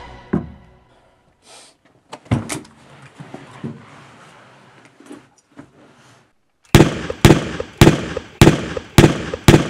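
Handgun fired six times in quick succession, about half a second apart, each shot loud and sharp with a short ring. Before the shots come a few scattered knocks and thumps of movement.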